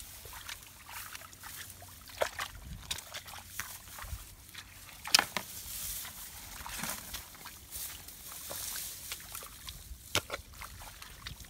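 Muddy water sloshing and splashing in irregular bursts as it is bailed out of a shallow ditch with buckets, with one louder splash about five seconds in.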